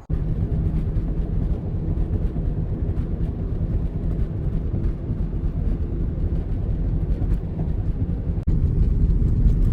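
Car engine running at a steady cruise with tyre and wind noise, a low, even drone. It cuts abruptly to a slightly louder stretch of the same drone about eight and a half seconds in.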